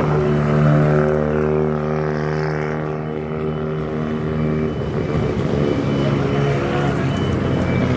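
Car engine running at steady revs with an even hum. A little past halfway through the even tone drops away, leaving rougher engine and road noise.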